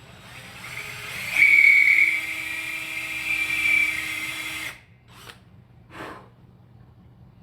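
Power drill spinning up to a steady whine as its bit cuts into the thin wooden top of a Gibson Les Paul Deluxe guitar body, then stopping about four and a half seconds in. Two short scrapes follow.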